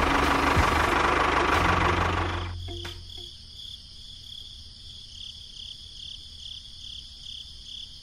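An engine runs with a low, knocking rumble and cuts out about two and a half seconds in. After that comes faint, high, cricket-like chirping at about three chirps a second.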